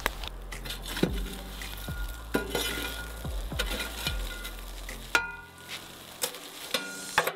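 A small metal shovel scraping up glowing charcoal and tipping it over foil-wrapped fish in a steel mangal, with sharp scrapes and clinks of coals about once a second. Twice in the second half the shovel rings against the metal box.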